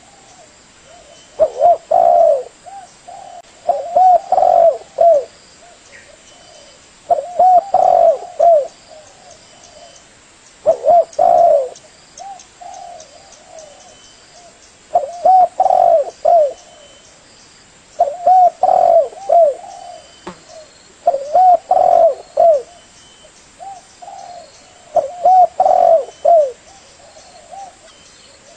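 Spotted dove (tekukur) cooing: a low phrase of several coos, repeated about every three to four seconds, eight times.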